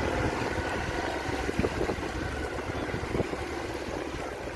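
Motorcycle engine running while water sloshes and splashes around the bike in shallow floodwater on a road, with a few brief knocks.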